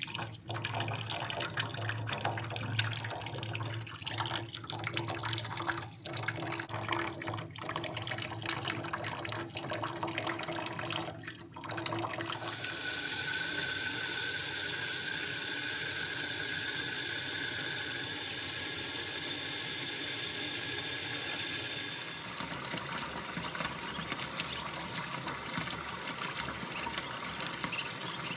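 Kitchen faucet running into a shallow stainless steel sink. About twelve seconds in the water turns to a steadier rush with a thin steady whistle, and near twenty-two seconds it changes again to a plainer, even rush.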